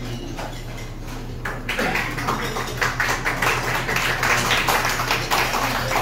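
Seated diners clapping, starting about two seconds in and building into steady applause, with a few clinks of tableware before it.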